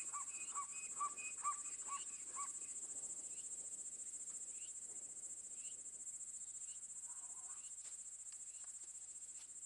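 Steady high-pitched chorus of insects such as crickets, the wildlife ambience of the scene. During the first two and a half seconds short chirps repeat about twice a second over it.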